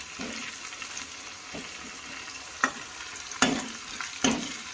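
Sliced onions sizzling in hot oil in a kadhai, nearly done frying, with a steady hiss. A steel ladle stirring them knocks against the pan three times in the second half.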